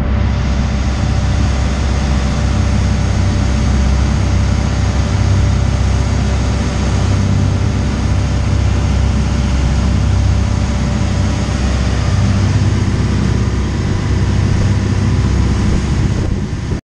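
Boat engine running steadily under way, a low hum with a haze of water rushing past the hull; it cuts off abruptly near the end.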